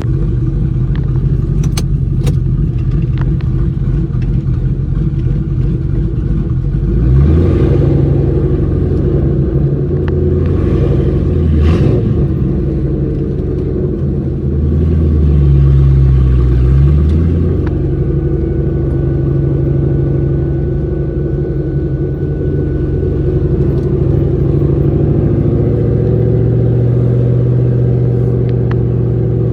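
Car engine and exhaust while driving, running steadily with the revs climbing about seven seconds in and again around fifteen seconds in.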